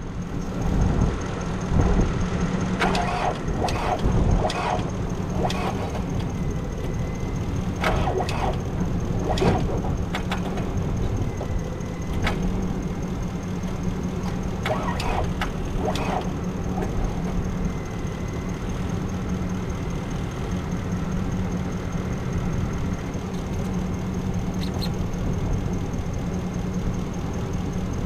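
Kubota V3600-T turbo-diesel of a wood chipper idling steadily, with a few sharp clanks in the first ten seconds and again around the middle. It runs evenly, with no knocking.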